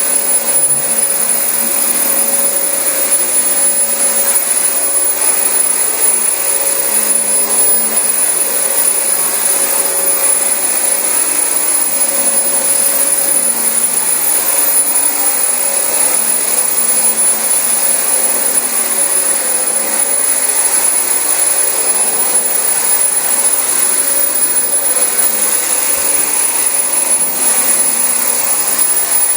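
Dyson DC25 bagless upright vacuum cleaner running steadily on carpet: a rushing airflow with a constant high whine, its lower hum shifting slightly in pitch every second or two as it is worked over the carpet.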